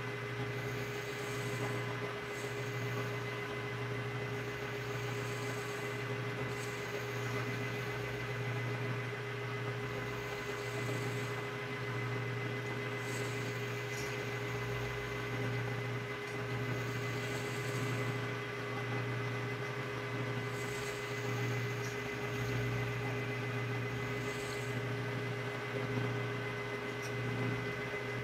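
Metal lathe running steadily, spinning a pool cue shaft while a cutting tool trims the new cue tip down to the ferrule: a steady motor hum, with a faint high scraping that comes and goes every couple of seconds.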